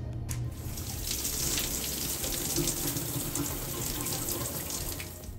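Shower water running onto a mesh bath pouf held in the hands, a steady splashing hiss. It starts about a third of a second in and cuts off at the end.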